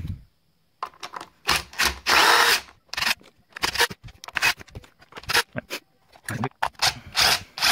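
Screwdriver backing screws out of the plastic housing of a Hitachi NR90GC2 gas nailer, in irregular bursts of rasping and clicking with knocks as the tool is handled, starting about a second in.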